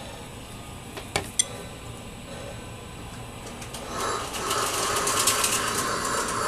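Lionel LionChief model train running on the track: two sharp metallic clicks about a second in, then a fast mechanical rattle of wheels and motor that starts about four seconds in and grows louder.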